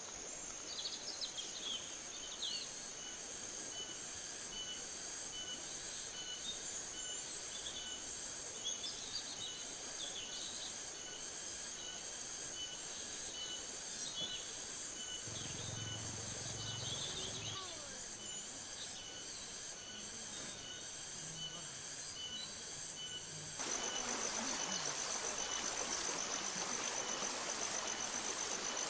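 Forest ambience: a steady, high-pitched insect drone with evenly repeating chirps, and birds chirping now and then. About three-quarters of the way through, it cuts to a louder, even rushing hiss with a fast, buzzing insect trill.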